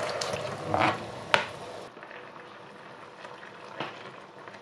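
Salted water at a rolling boil in a wok as cubes of tofu are pushed off a cutting board into it, with a sharp knock about a second in. After that the bubbling goes on, quieter and steady.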